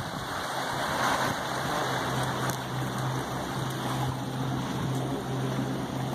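Wind rushing over the microphone with water sloshing below the pier, and a steady low engine hum that comes in about a second in and holds.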